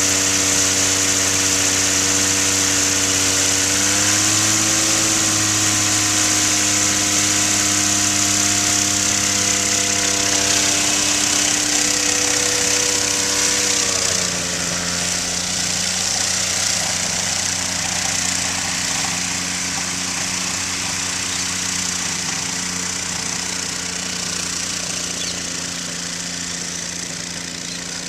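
X-Air microlight aircraft engine and propeller running steadily at taxi power. The note rises slightly about four seconds in, drops about halfway through, and then slowly fades as the aircraft taxis away.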